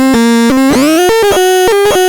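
Torturon C 20 electronic synthesizer making a buzzy, overtone-rich tone. It holds a low note, slides upward in pitch about half a second in, then chops into rapid short staccato notes.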